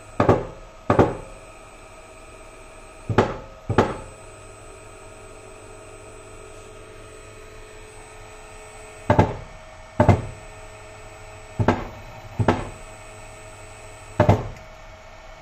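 Yaskawa servo drive and motor being jogged from the drive's keypad: nine sharp knocks, mostly in pairs a half-second to a second apart, over a steady electrical hum with faint high steady tones.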